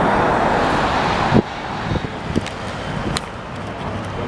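City street traffic, a steady noise of passing cars, which cuts off suddenly with a short thump about a second and a half in. After that, quieter handling noise follows, with a few sharp clicks and knocks.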